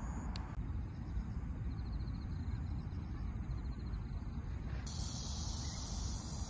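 Outdoor park ambience: a steady low rumble of wind on the microphone, with insects chirping faintly. About five seconds in, a dense, high insect buzz sets in.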